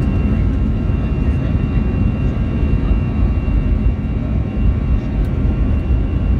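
Airbus A321 jet engines heard from inside the cabin as the airliner rolls along the runway: a loud, steady low rumble with a thin, steady high whine.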